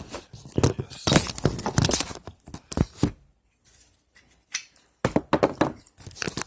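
3D printed plastic gripper parts handled and worked by hand, giving bursts of clicking, rattling and scraping plastic, in three groups.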